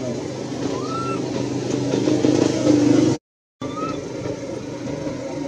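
A motor vehicle's engine running close by, building up over about three seconds, then cut off abruptly by an edit and resuming more quietly. A short high rising-and-falling call sounds over it about a second in, and again near the end.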